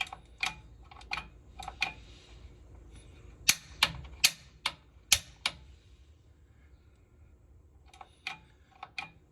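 Piezo pilot igniter on a Honeywell water-heater gas control valve clicking sharply as it is pressed repeatedly, in three bursts of several clicks, the loudest in the middle. The pilot has not yet lit.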